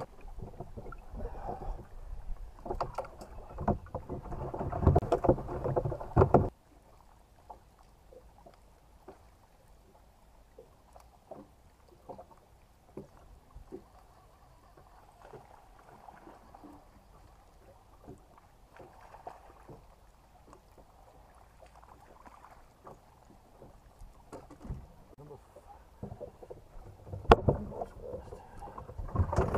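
Fishing boat on the water, with noisy hull and water sounds that cut off suddenly about six seconds in. After that come faint scattered knocks and clicks, a sharp click near the end, and louder boat noise again at the very end.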